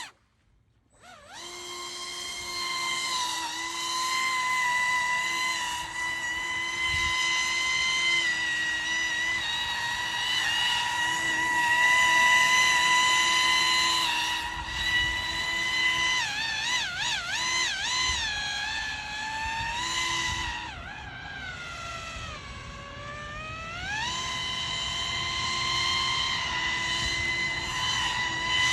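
Pro Boat AeroTrooper 25-inch RC airboat's electric motor and fan propeller running as a steady high-pitched whine. About two-thirds of the way through, the pitch wavers quickly up and down. It then drops for a few seconds and climbs back as the throttle comes back up.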